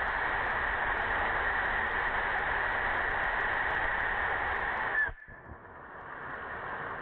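Homemade ammonium perchlorate composite propellant (APCP) rocket motor firing on a static test stand: a steady, loud rushing hiss of the exhaust. About five seconds in it drops off sharply as the burn tails off, leaving a much fainter hiss.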